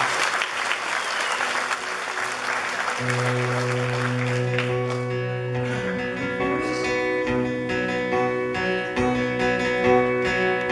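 Audience applause dying away over the first few seconds as a country band starts the instrumental intro of a song, led by picked acoustic guitar with held notes beneath it.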